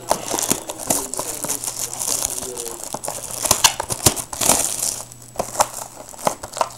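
Plastic shrink-wrap on a trading-card box crinkling and crackling as hands turn the box and work the wrap off, in irregular bursts with many sharp snaps.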